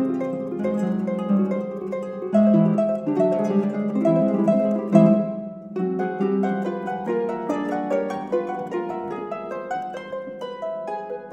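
Two concert pedal harps playing a duet, with rapid plucked notes ringing over sustained low notes. There is a brief lull about halfway through before the playing picks up again.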